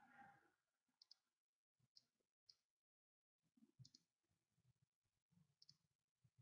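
Near silence broken by about five faint computer mouse clicks, spaced unevenly about a second apart.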